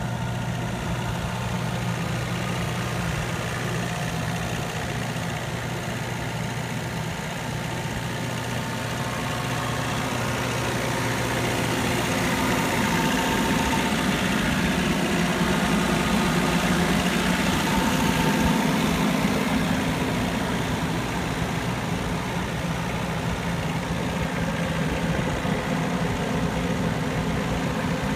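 Jacobsen AR250 five-unit rotary mower's diesel engine idling steadily, a little louder for several seconds in the middle.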